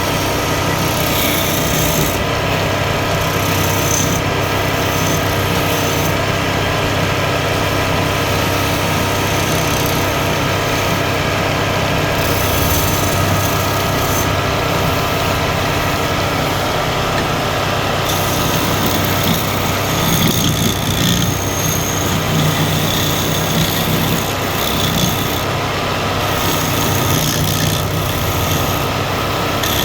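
Wood lathe running with a steady motor hum while a tool works against the spinning wood; the cutting sound changes character about two-thirds of the way through.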